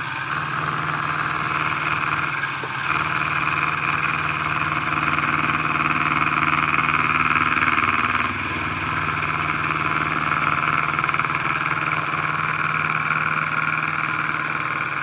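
Milling machine running, its cutter cutting metal as the part is turned round on a rotary table: a steady hum with a hissing cutting noise that grows louder a few seconds in and drops back a few seconds later.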